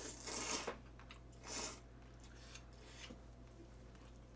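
A person slurping jjamppong noodles in two loud, airy slurps, the second about a second and a half in, followed by quiet chewing.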